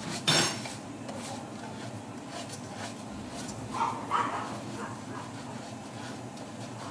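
Dry rice being stirred and scraped with a plastic spatula in a hot nonstick pan, a steady rustling. A dog makes short sounds twice, once just after the start and again about four seconds in.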